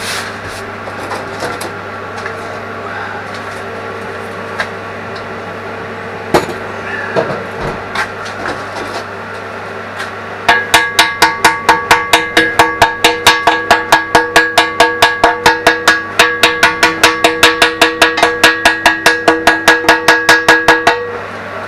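A hand hammer striking the steel digger bucket in a rapid, even series of about four to five blows a second, the steel ringing under the blows. The hammering starts about halfway through and stops just before the end.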